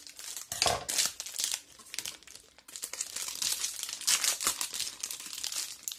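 Clear plastic wrapper of a pack of glossy photo paper crinkling in the hands as it is opened, in irregular bursts with a short lull about two seconds in.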